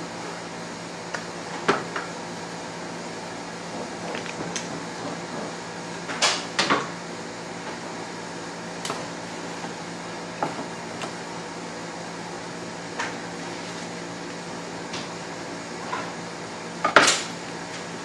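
Kitchen handling noises: dishes, containers and utensils knocked and set down at irregular intervals, with a sharp double clatter near the end, over a steady hum.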